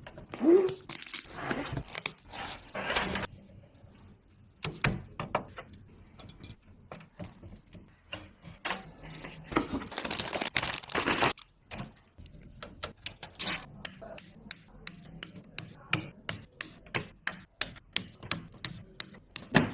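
Handling noise from computer parts: rustling and clacking, then a run of sharp, evenly spaced clicks, about three a second, in the last several seconds.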